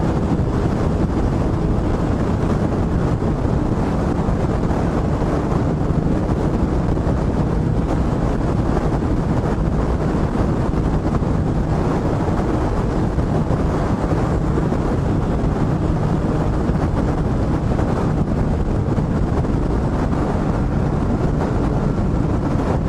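Motorcycle at steady highway cruising speed: wind rushing on the microphone over an even engine drone, with no change in speed.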